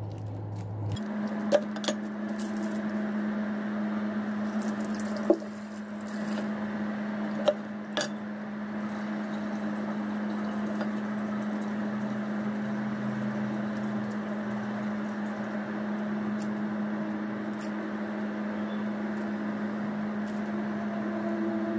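A steady low hum that starts about a second in, with a few sharp metallic clicks from a kitchen knife being handled over a wooden chopping block.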